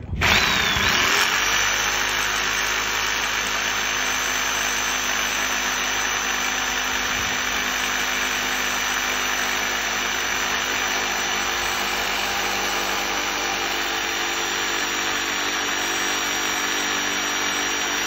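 Jigsaw starting up, rising quickly to speed, then running steadily as its blade cuts into the edge of a wooden door for a pocket-door lock hole.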